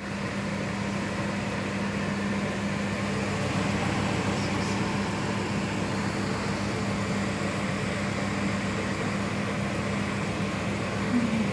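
A fan running with a steady hum and a constant low tone.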